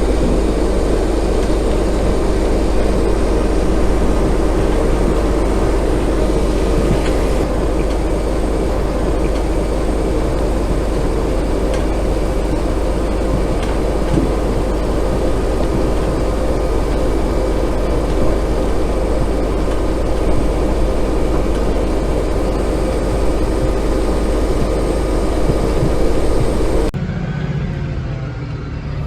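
Heavy diesel machinery running steadily with a deep rumble. About 27 seconds in, the sound changes abruptly to a quieter engine sound.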